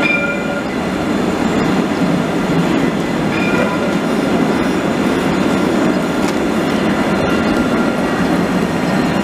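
Jerusalem Light Rail Alstom Citadis trams passing close by on street-embedded track: a steady rumble of wheels on rail, with a couple of brief faint wheel squeals.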